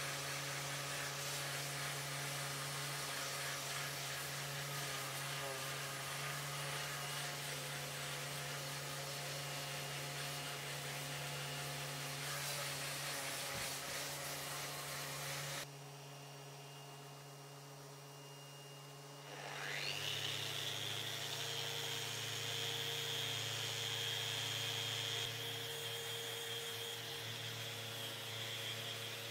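Makita belt sander running steadily across an epoxy-and-wood slab, then cut off abruptly about 16 seconds in. After a few quieter seconds, a random orbital sander spins up with a rising whine and runs on with a steady high whine, a steady low hum continuing underneath.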